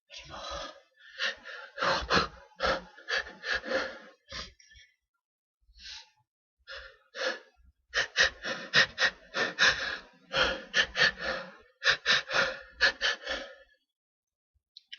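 A person's pre-sneeze hitching: runs of quick, catching gasps, several a second, in two long bouts with a few scattered gasps in the pause between them.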